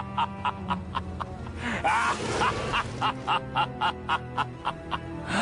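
Short music clip with a quick steady beat, about four strokes a second, over held bass notes, with a few sliding tones about two seconds in.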